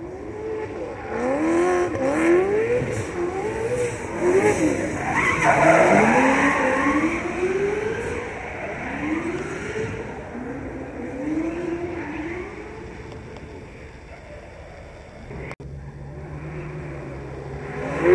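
Drift car engine revving up and down again and again as the car slides, with tyres squealing. It is loudest about five to seven seconds in and grows quieter after that.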